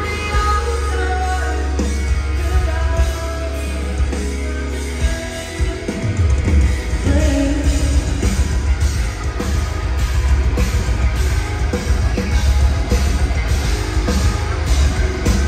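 A heavy metal band playing live over a venue PA, heard from the crowd: a woman sings over a sustained low drone. About six seconds in the low end turns dense and pounding as the full band comes in.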